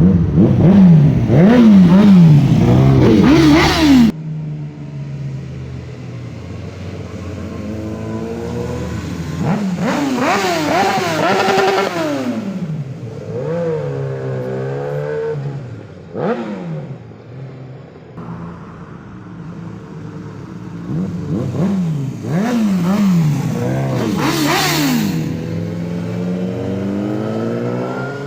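Inline-four superbike engine revved in quick throttle blips, each rising and falling sharply, then dropping back to a steady idle. This happens in three bouts: the first few seconds, around the middle, and again near the end.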